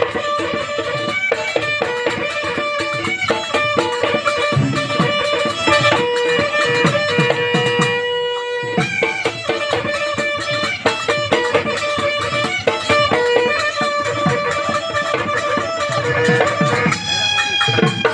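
Live Bihu music: a pepa, the Assamese buffalo-horn pipe, playing a reedy, held melody over fast dhol drumming whose low strokes bend down in pitch. It breaks off briefly near the middle.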